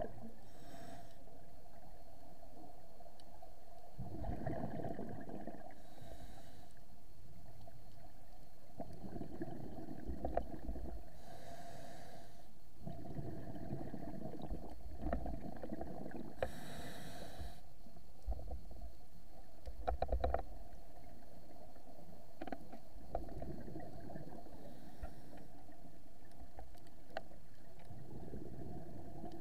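Scuba diver breathing through a regulator underwater. Each inhalation is a hiss, roughly every five seconds, and each is followed by a low bubbling rumble as the exhaled air leaves. A few sharp clicks come through, the loudest about two-thirds of the way in.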